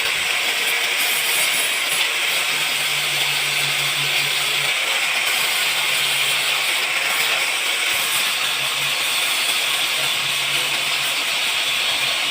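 A steady hiss, with a low hum that comes and goes several times.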